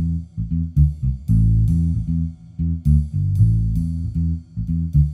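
Background music led by a plucked bass guitar playing a run of short, separate notes.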